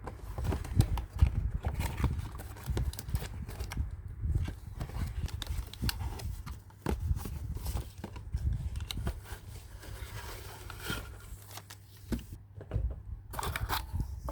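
Unboxing a miniature toy playset: a busy run of small clicks, taps and crinkles as plastic pieces and packaging are handled. A low steady hum runs underneath.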